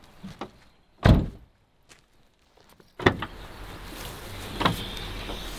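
A loud, heavy thump about a second in, then a sharp knock about two seconds later and a lighter click near the end, over a steady low background noise that starts with the knock.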